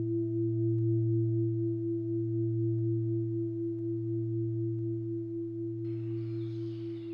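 Singing bowl ringing: a low hum with a higher overtone, wavering slowly and fading gradually. Near the end, faint outdoor background sound fades in.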